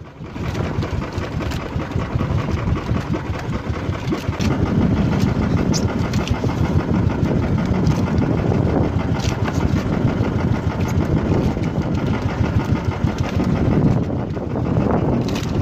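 Engine of a small outrigger fishing boat running steadily underway, a dense pulsing rumble that grows louder about four seconds in.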